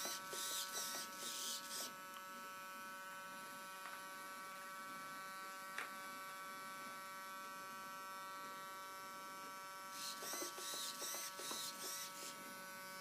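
Servos of a Kyosho Concept 30 RC helicopter whirring in quick back-and-forth bursts as the tail rudder is worked from the transmitter. There are two spells, one in the first two seconds and one about ten seconds in. A steady thin electronic whine runs under them.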